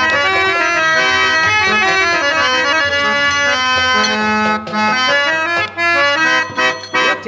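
Harmonium playing a melody in held reedy notes, which turn short and choppy in the second half, with a few strokes on a barrel drum.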